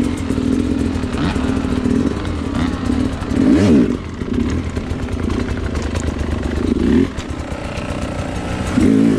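Sherco SE300 two-stroke enduro bike engine running under throttle while ridden. It revs up and back down sharply about three and a half seconds in and again near the end, easing off briefly about seven seconds in.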